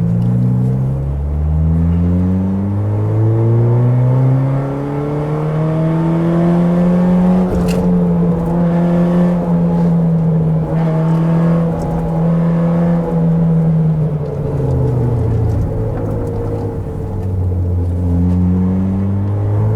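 A car engine under way, revving up and dropping back in pitch at a series of upshifts in the first few seconds. It then holds a steady note for several seconds, falls away as the car slows, and picks up again near the end.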